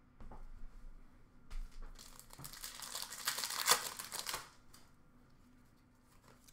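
A trading card pack's wrapper being torn open and crinkled by hand, a rustling with small crackles that is loudest in the middle, then dies away.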